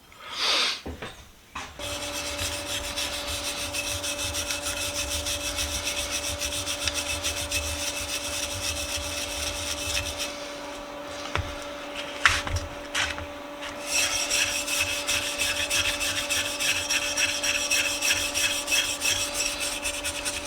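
Old paint being scraped off a cast vise body by hand: fast, repeated rubbing strokes, with a pause in the middle broken by a few sharp knocks. A steady hum runs underneath.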